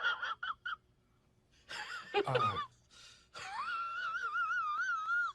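An animal's high-pitched whining: a few short squeaks, then one long wavering whine that cuts off near the end.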